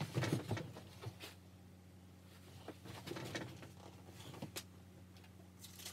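Light, irregular footsteps and scuffs of a person moving about a small room, over a faint steady low hum.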